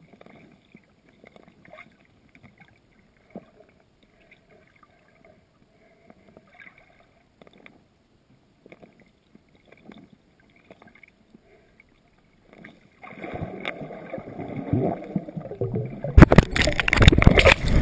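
GoPro in its waterproof housing lying underwater on a riverbed: faint ticks and a weak hiss for most of the time. About thirteen seconds in, a rushing noise of disturbed water rises as the camera is reached. It turns into loud sloshing and splashing near the end as the camera is grabbed and brought up.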